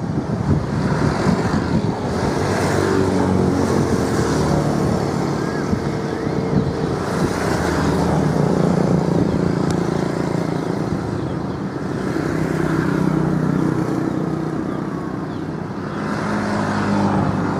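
Motor engines running, their pitch shifting up and down over a steady rumble.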